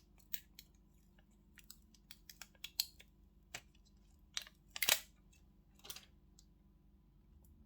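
Scattered small clicks and crinkles of thin plastic handled at close range: protective stickers being peeled off a replacement phone screen, with the sharpest snap about five seconds in.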